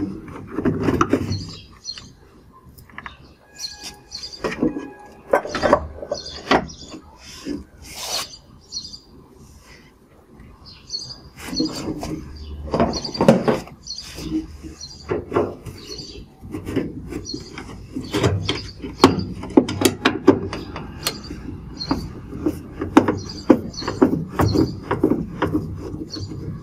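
Plastic detergent drawer of a Whirlpool front-loading washing machine sliding and clicking out at the start, then a screwdriver scraping and turning in the screws behind it, with repeated plastic clicks, knocks and rubbing as the front panel is unscrewed. Birds chirp in the background.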